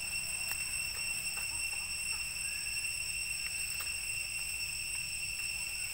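Forest ambience: a steady high-pitched drone runs throughout, over a low rumble, with a few faint clicks and rustles in dry leaf litter.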